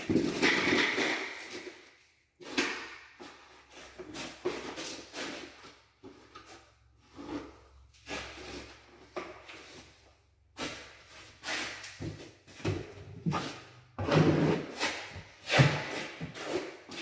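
Irregular scraping, rubbing and knocking of tile-setting tools and mastic being handled, ending in a trowel scraping mastic onto the wall near the end.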